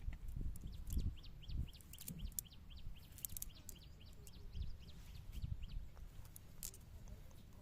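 A bird calling in a rapid run of short, high chirps, about five a second, lasting several seconds. Under it are low thumps and rumble.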